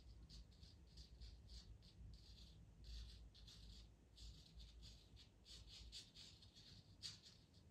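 Pastel pencil scratching on pastel mat paper in many short, light strokes, a few a second.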